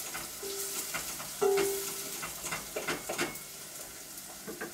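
Food sizzling in a pan while a utensil stirs it, with irregular scraping knocks against the pan. A short steady tone sounds about a second and a half in.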